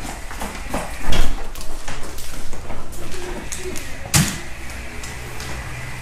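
A door thuds shut about a second in, among a series of knocks and footsteps on the garage's concrete floor, with another sharp knock a little after four seconds.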